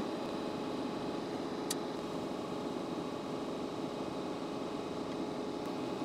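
Steady whir of an electric fan or air blower running at a constant speed, with one faint tick about two seconds in.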